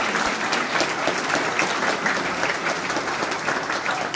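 Audience applauding: many people clapping at once in a dense patter that begins to ease off near the end.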